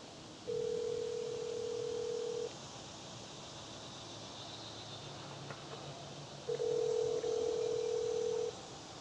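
Telephone ringback tone heard over a phone's speaker: two steady two-second rings about four seconds apart, the call ringing through while waiting to be answered.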